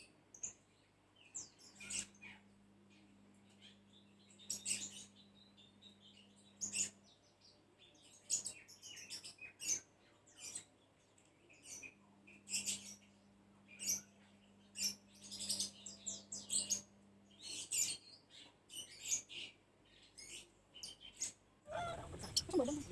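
Hands squeezing freshly grated coconut in a bowl of water to press out coconut milk: irregular short wet squelches and splashes, some in quick runs. A faint low hum comes and goes twice underneath.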